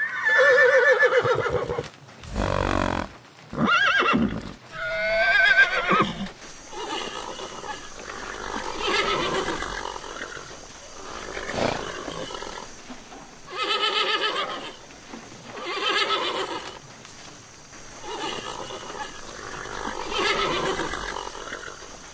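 Horse whinnying repeatedly. There are several loud, wavering whinnies in the first six seconds, then softer whinnies about every two seconds.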